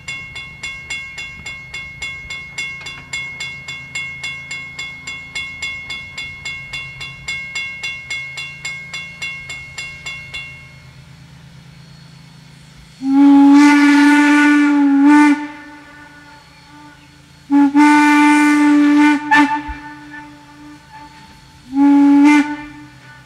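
Norfolk and Western 475 steam locomotive working, with exhaust chuffs at about four beats a second that stop about ten seconds in. Its steam whistle then sounds two long blasts and a short one, the opening of a long-long-short-long grade-crossing signal.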